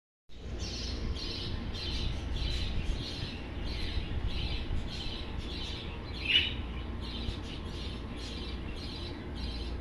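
Small birds chirping over and over, about two chirps a second, with one louder call that falls in pitch about six seconds in. A steady low rumble runs underneath.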